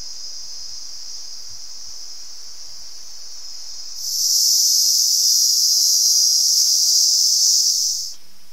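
A high-pitched, steady insect buzz of a forest chorus, much louder from about four seconds in and dropping back abruptly about four seconds later.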